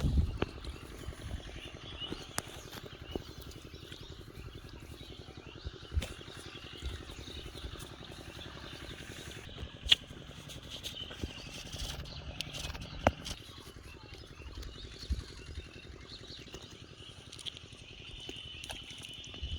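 Outdoor riverside ambience with a steady high chirping from birds or insects, broken by a few sharp knocks, the loudest about ten and thirteen seconds in.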